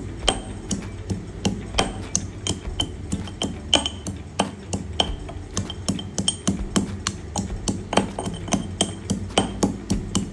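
Metal pestle pounding fresh ginger in a stone mortar: a steady run of sharp knocks, about three a second, some with a brief ring.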